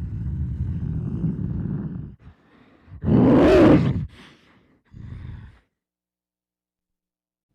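Monster creature sound effects: a low, rough growl lasting about two seconds, then a louder roar about three seconds in whose pitch rises and falls, and a short low growl a little after five seconds. These are the Kothoga's growls, made by a man's voice.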